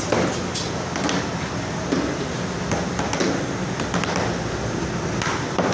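Hands slapping and patting balls of roti dough flat on a floured steel table: a run of sharp, irregular slaps, some of them about a second apart, over a steady background din.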